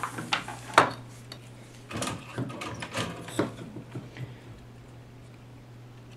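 A tool scraping and clicking against a printed circuit board in short irregular strokes, working over a burnt, charred spot. After about four seconds only a faint steady low hum is left.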